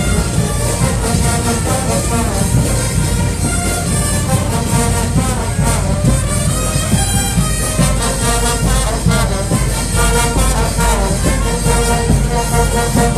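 Brass band playing a tune, with trumpets and trombones.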